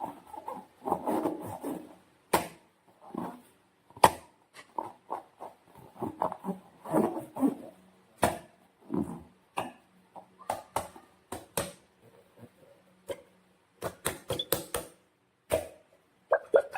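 Slime and rubber balloons being handled: irregular wet squelches and rubbing, with scattered sharp clicks.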